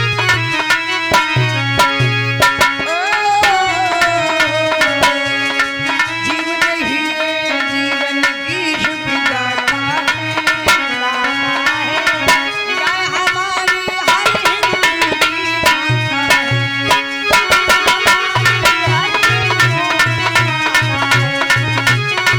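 Instrumental passage of a Hindi devotional folk song: a tabla-like hand drum beating fast strokes under a melody with gliding pitches. The deep bass drum strokes drop out for much of the middle and come back near the end.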